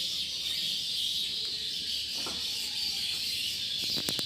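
Swiftlets in a swiftlet house, a dense, steady high-pitched twittering chirr from the colony, with a few sharp clicks near the end. The house's call-playback machine is dead, so the chirping is the birds themselves.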